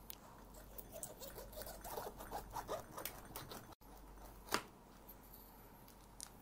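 A knife cutting down through a whole pineapple's tough rind and flesh on a cutting board: a run of small crackling crunches, then one sharp knock about four and a half seconds in.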